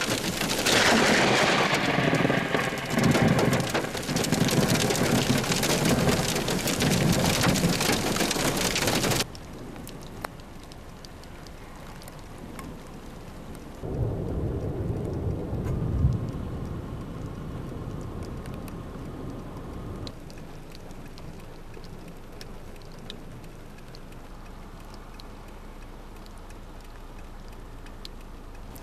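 Heavy downpour with loud thunder from a lightning strike close by, which cuts off abruptly after about nine seconds. Then softer steady rain, with a low rumble of thunder rising and fading midway.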